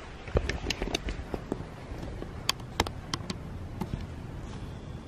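Handling noise from a handheld camera being moved about: scattered sharp clicks and knocks, with a dull thump about half a second in, over a low rumble.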